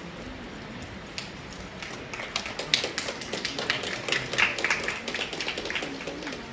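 Hand clapping from a small audience, beginning about two seconds in and thinning out near the end.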